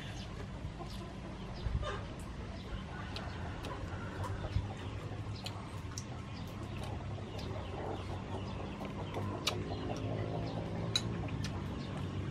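Chickens clucking, with short sharp clicks scattered throughout and a steady low hum underneath.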